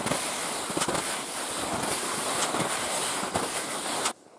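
Wooden skis shuffling and crunching through soft, wet spring snow with a weak crust, with irregular crunching strikes as the skier strides. The sound cuts off suddenly near the end.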